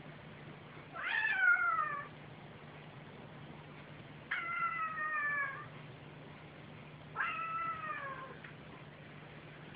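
Siamese cat meowing three times during play. Each call lasts about a second and falls in pitch, the first coming about a second in and the last near the end.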